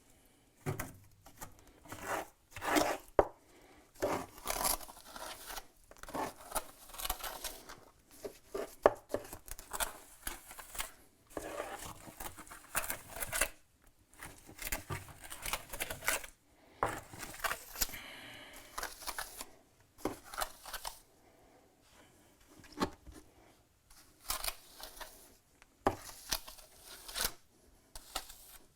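Mason's trowel scraping and working mortar in many irregular strokes with short pauses between.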